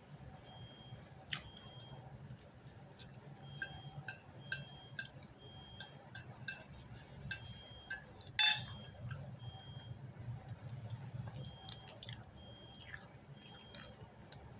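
A person eating: quiet chewing with many small mouth clicks and smacks, and one louder, brief noisy crunch about eight seconds in.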